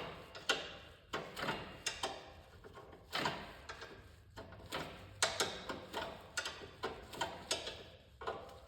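Irregular metallic clicks and clinks, about one or two a second, of a hand tool turning a nut to tighten a fastener on a snowblower's drive cable fitting.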